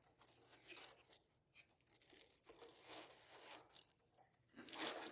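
Faint scattered clicks and rustles of a dirt bike chain being pulled through around the countershaft sprocket, growing louder near the end.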